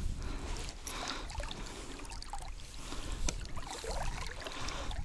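Small splashes and trickling water as a hooked asp is held and unhooked at the waterline against an inflatable boat, with scattered light clicks and a low rumble underneath.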